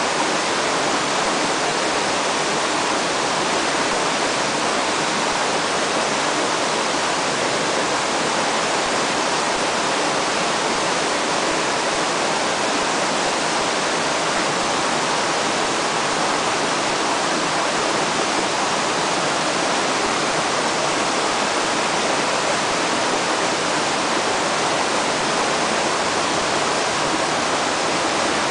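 Steady rush of fast-flowing river water, an even noise without a break.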